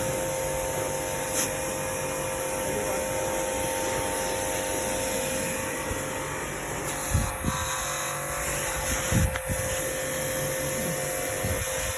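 A motor running steadily with a constant hum, and a few knocks or bumps about seven and nine seconds in.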